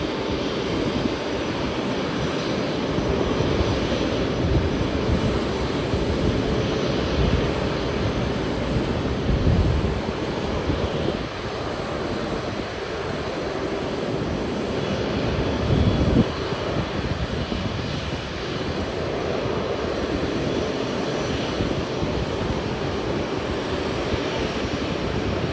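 Jet airliner engines running steadily at low power as the plane taxis, with a few heavier low gusts of rumble partway through.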